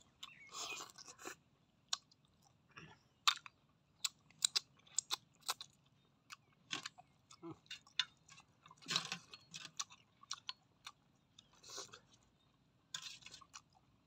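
Close-up eating of cooked snails: chewing with many short wet mouth clicks and smacks, and a few longer noisy sounds in between.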